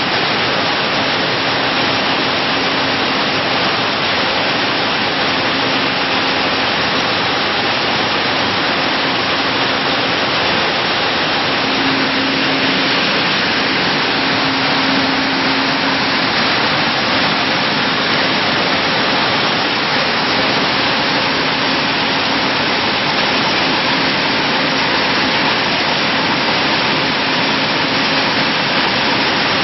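Steady noise of broad bean processing machinery running, with a faint hum that comes and goes.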